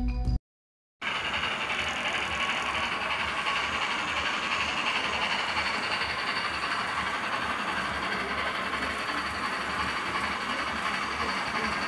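HO scale model Union Pacific steam locomotive running along the track with its tenders: a steady mechanical whirr of the motor and gears with a fast, even pulsing underneath, beginning about a second in.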